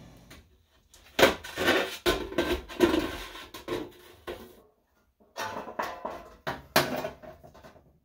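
Sheet-metal stove pipe being handled and fitted: irregular clattering and scraping of thin metal, in two spells with a short pause about halfway.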